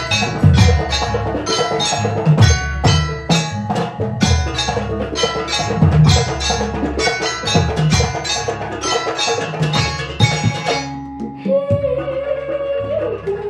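Ensemble of Banyuwangi kendang, two-headed hand drums, playing a fast, steady rhythm together with ringing pitched percussion. About eleven seconds in the drumming stops and different music with a long held melody note takes over.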